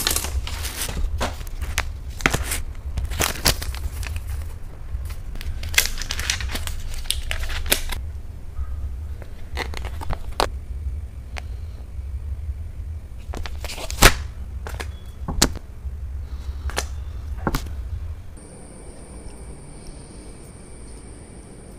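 Aluminium foil takeaway tray being handled and opened, with wooden cutlery against it: scattered sharp clicks and foil crinkles over a low handling rumble. The rumble stops about 18 seconds in, leaving a faint steady high tone.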